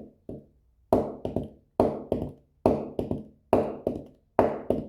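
Heart sounds with a third heart sound (S3): repeating triplets of dull beats, a first beat followed by two close together, about 70 times a minute. This is the 'Ken-tuc-ky' ventricular gallop rhythm.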